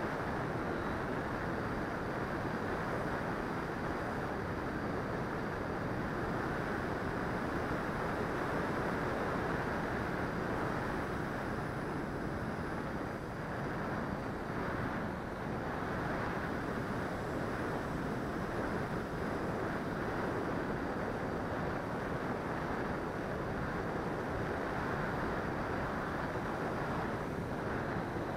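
Steady rushing of wind over the onboard camera's microphone on an RC L-39 Albatros jet in flight, with a faint high whine above it.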